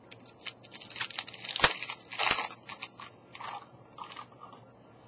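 Crinkling and crackling of a foil hockey card pack wrapper being handled and torn open, irregular and loudest with two sharp snaps in the middle, then trailing off into a few lighter rustles.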